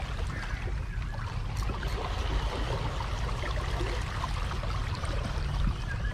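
Small sea waves lapping and splashing against the rocks of a breakwater, a steady wash of water noise over a low rumble.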